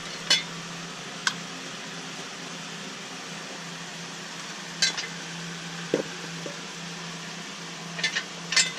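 Scattered sharp metal clinks and taps of a hand socket and tools on bolts, a few spaced apart and several in quick succession near the end, over a faint steady hum.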